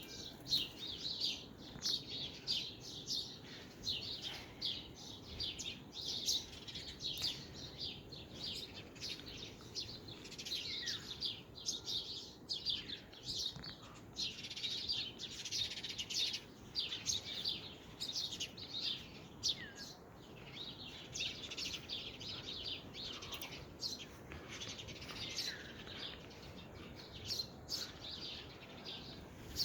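Many birds chirping and twittering at once in a dense morning chorus of short, high calls.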